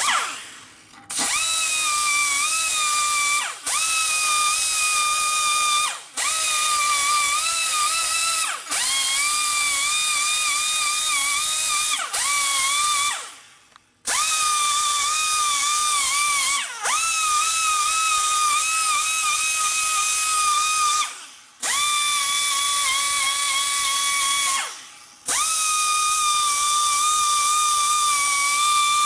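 A high-speed handheld power tool whining in about nine short runs of a few seconds each, with brief stops between them. Its pitch dips as each run starts and then holds steady.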